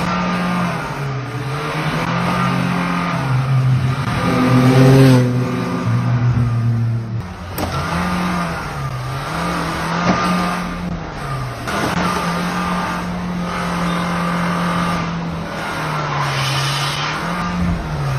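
Motor vehicle sounds from road footage: a low droning tone that repeatedly glides up and falls back between two pitches, over a steady rushing noise.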